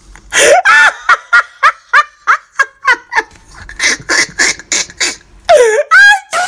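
A woman's voice making a rapid run of short, clipped vocal sounds, like chuckles and clucks, many sliding up or down in pitch. Near the end come two longer swooping cries.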